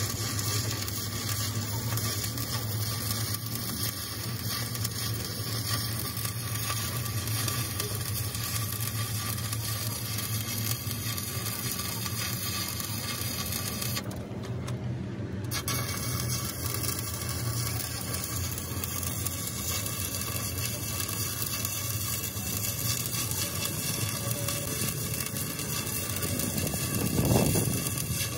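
Stick (shielded metal arc) welding: the electrode arc crackling and sizzling steadily on heavy steel, with a steady low hum underneath. The arc breaks off for about a second and a half midway, then strikes up again, and a short thump comes near the end.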